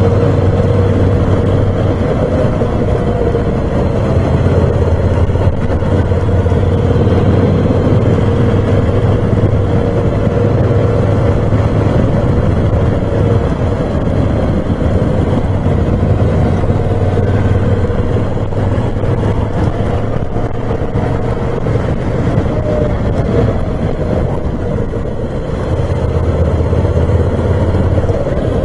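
Moto Guzzi V7 Special's 750 cc air-cooled transverse V-twin running steadily under way, with wind and road noise over it. The engine eases off briefly near the end and then picks up again.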